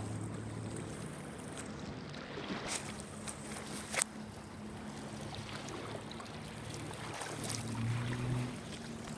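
A motorboat engine running at a steady hum as the boat comes around toward the shore, the hum swelling near the end. One sharp click about four seconds in.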